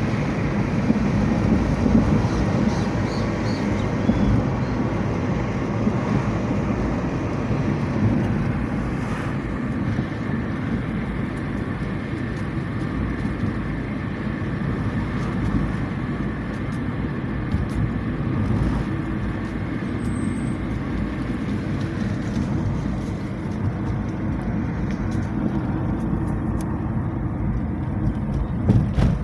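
Fiat Palio Weekend driving at a steady pace, heard from inside the cabin: a steady low rumble of engine and tyre noise on the road.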